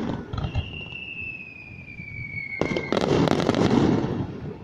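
Aerial fireworks: the tail of a volley crackles and fades while a high whistle glides slowly down in pitch. About two and a half seconds in, another shell bursts into a long, dense crackle that dies away near the end.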